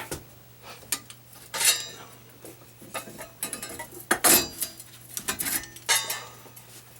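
Steel parts clinking and clattering as they are handled: a series of sharp metallic clinks, with the loudest cluster a little after the middle.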